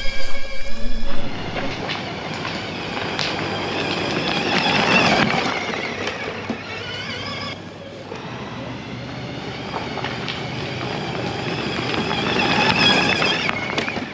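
Electric drive motor of an Outrider Coyote recumbent e-trike whining under load, its pitch rising and falling with speed over a rough rushing noise from the ride. The whine climbs and swells twice, near the middle and again near the end.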